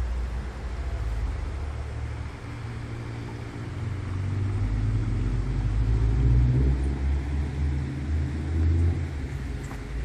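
Low engine rumble of a motor vehicle close by, swelling louder about halfway through and easing near the end, as a car passes.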